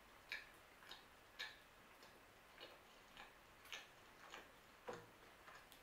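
Faint, wet mouth clicks of someone chewing a bite of soft pinsa flatbread with the mouth closed, in an even rhythm of a little under two chews a second.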